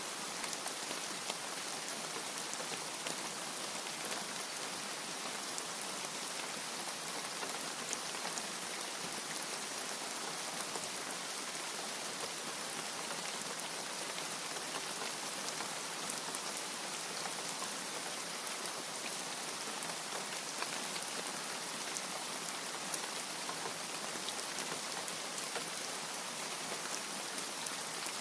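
Steady rain falling: an even, continuous hiss with scattered drop taps.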